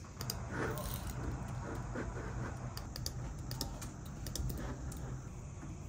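Typing on a computer keyboard: irregular quick key clicks over a low steady hum.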